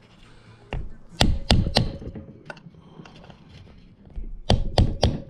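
Small hammer tapping a valve seal installer tool to seat new valve stem seals on a Honda B16 DOHC VTEC cylinder head. There are three quick taps, a pause of a few seconds, then three more quick taps.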